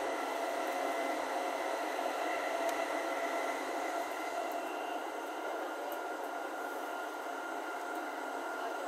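Steady running noise of an E231 series electric commuter train heard from inside the carriage: an even rushing hiss with a few faint steady tones, easing off a little about halfway through.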